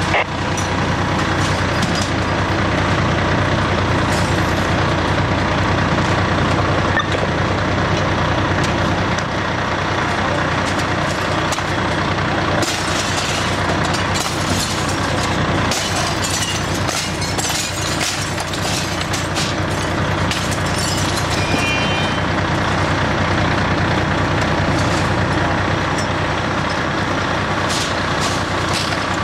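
Fire engine's diesel running steadily at high revs while pumping water to the hose lines. Scattered sharp knocks and clatter come through it in the middle stretch.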